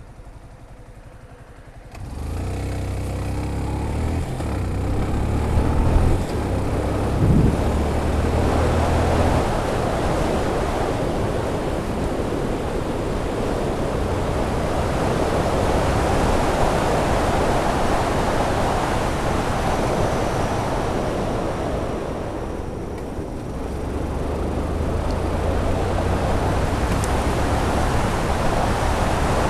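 Yamaha FZ16 motorcycle's single-cylinder engine pulling away about two seconds in, then heavy wind noise rushing over the helmet-mounted Freedconn R1 camera's microphone as speed builds. The deadcat muffler does not hold back the wind, and it largely drowns the engine, which comes through plainly again near the end after a brief easing of the wind.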